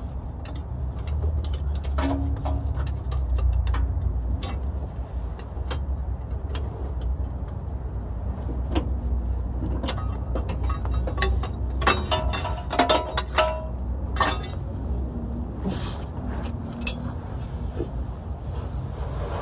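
Hand tools and metal parts clinking and knocking under a car during transmission removal, with a quick run of ringing metal clinks about twelve seconds in, over a steady low rumble.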